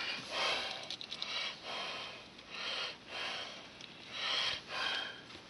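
A man breathing and sniffing through his nose close to the microphone: a string of soft breaths, about one a second.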